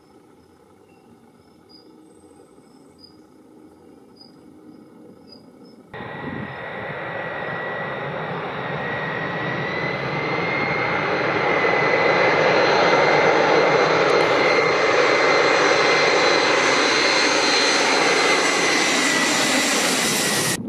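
Quiet outdoor background with a faint, regularly repeating high chirp, then from about six seconds in the engine noise of a four-engine Airbus A340 on low final approach. The jet noise carries a steady high whine and grows louder as the airliner comes close overhead, then cuts off suddenly.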